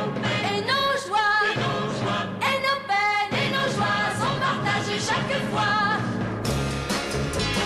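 Pop song with a solo voice singing a wavering, held melody over band accompaniment; about six and a half seconds in the music cuts abruptly to a different recording.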